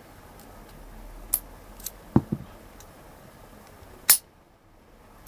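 Solid brass Yale padlock being single-pin picked with a hook pick and tension wrench: scattered small metallic clicks as the pins are worked, then a loud, sharp click about four seconds in as the lock gives and the shackle springs open.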